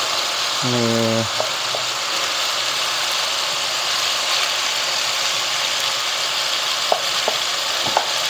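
Chicken and hard vegetables sizzling in a hot oiled wok as they are added and stirred: a steady frying hiss, with a few light knocks of the wooden spatula and plate against the wok near the end.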